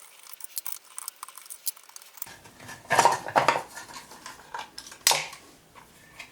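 Metal tools and screws clinking and rattling against the mini mill's metal electrical box and spindle head as its mounting screws are taken out. Faint ticks at first, then a run of sharp clinks about three seconds in and one loud clank near five seconds.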